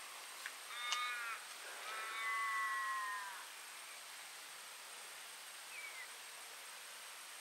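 A crow calling twice: a short call about a second in, then a long drawn-out call that falls away at its end, over a faint steady hiss.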